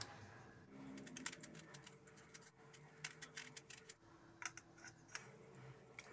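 Faint, irregular clicks and taps of a knife slitting small brinjals (eggplants) crosswise, with the blade and fruit being handled.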